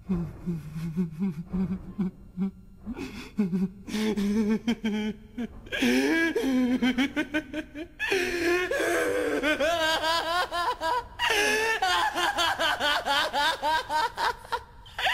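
A man laughing, starting as low, halting chuckles and building over several seconds into loud, high-pitched, sustained laughter, with only brief breaths between runs.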